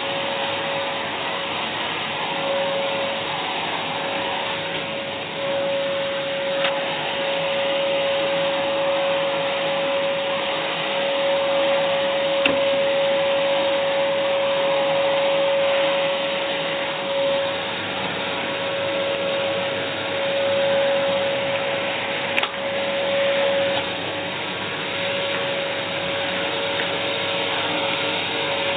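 AEG Airmax AMM6216 2100 W canister vacuum cleaner running steadily: a rush of air with a steady motor whine. Two small clicks come near the middle and again later.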